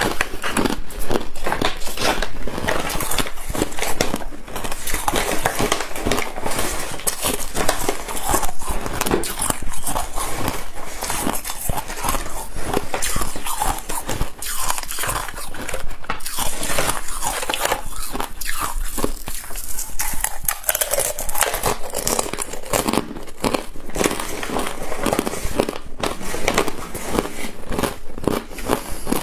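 Someone biting and chewing frost-covered ice, a steady run of crisp crunches and crackles as the ice and freezer frost break between the teeth.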